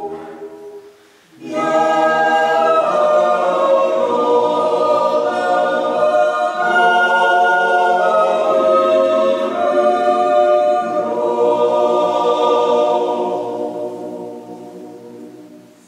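Mixed-voice Swiss yodel choir singing a cappella in close harmony, holding long chords. The singing breaks off briefly about a second in, then resumes and dies away over the last few seconds.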